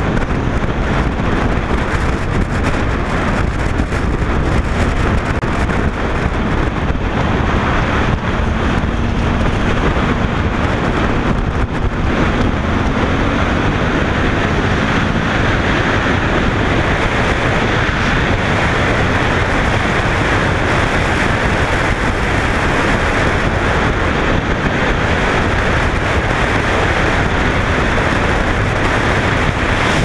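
Wind buffeting the microphone of a camera on a moving motorcycle, over the steady drone of a Suzuki V-Strom's V-twin engine; the engine note rises slightly about seven seconds in.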